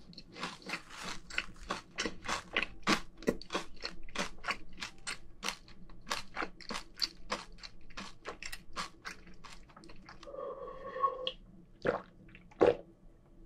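Close-miked chewing of crunchy fried food, a quick run of crisp crunches about two to three a second. Near the end the chewing stops, there is a short hum, and then a couple of gulps of beer.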